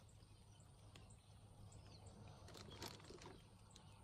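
Near silence: faint outdoor ambience with a few small, scattered clicks and a brief soft rustle about three seconds in.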